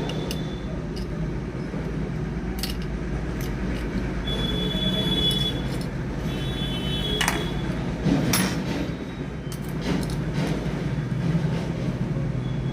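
Small clicks, scrapes and a few brief high squeaks from an itel 5040 feature phone's plastic housing and parts being handled and pried apart, over a steady low hum.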